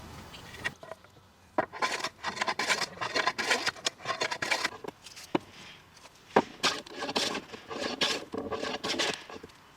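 Hand tool working over the wood of an old, uneven cutting board: two runs of quick rough scraping strokes, with sharp wooden knocks before and between them.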